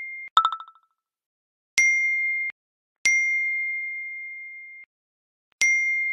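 A single-pitched, bell-like ding sound effect sounds three times, each striking and ringing down. The second is cut off short. Just after the start a brief rippling chime sounds as the previous ding fades. There is dead silence between the tones.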